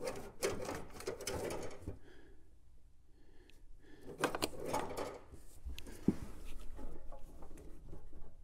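Hands working an old steel brake hard line through a crowded engine bay: intermittent clicks, taps and scrapes of the metal line against hoses and parts, with rustling of a sleeve. A brief lull comes about two seconds in.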